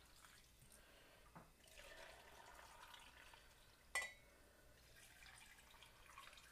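Faint trickle of hot water being poured into glass canning jars packed with green beans, with one sharp clink of glass about four seconds in.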